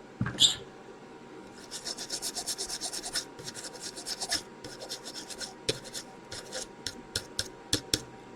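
Quick back-and-forth rubbing strokes on a circuit board, as when scrubbing the board clean. A single sharp knock comes just after the start, and scattered light ticks and taps follow near the end.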